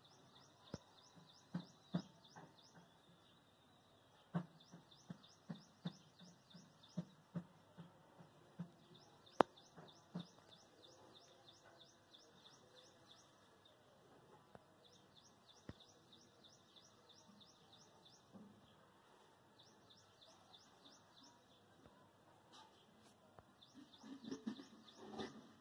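A small bird trilling in the background, fast high chirps in runs of a few seconds, repeated throughout. Over it, scattered sharp taps and light thumps of a knife on a stone slab while green chillies are sliced, with a brief louder clatter near the end.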